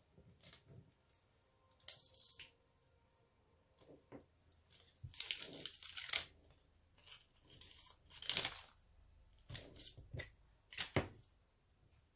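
Sticky tape being peeled and handled over a craft strip: several short rustling, crinkling bursts, the longest about five seconds in, with a few light taps between them.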